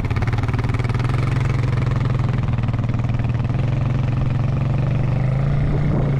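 Single-cylinder four-stroke ATV engine running at a steady low speed, its pitch rising slightly near the end.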